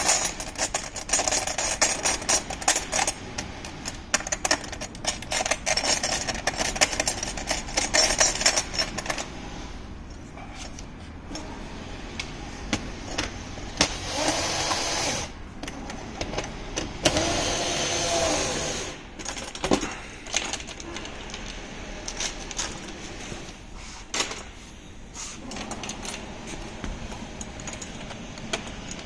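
A ratchet wrench clicking rapidly for about nine seconds as bolts on a motorcycle's chrome rear rack bracket are tightened. After that come quieter, scattered clicks and clinks of metal tools on the rack.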